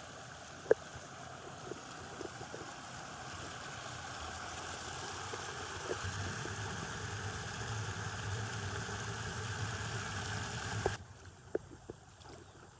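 Mountain river water rushing steadily, slowly growing louder, with a low hum underneath and a sharp click about a second in; the sound drops off abruptly near the end.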